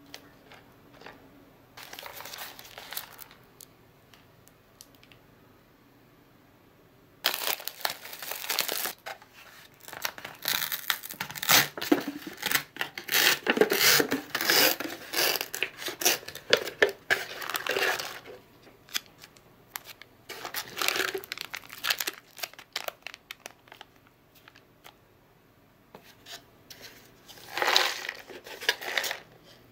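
Crinkly plastic and paper packaging of an instant noodle cup being torn open and crumpled, then the foil-lined paper lid peeled back, in bursts of dense crackling with short pauses between.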